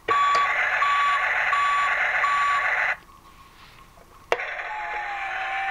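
Electronic sound effects from a Tonka Rescue Force toy fire tanker's speaker, set off by pressing its button. A noisy effect with four evenly spaced beeps plays and stops about three seconds in. After a click about four seconds in, a second effect with a steady held tone begins.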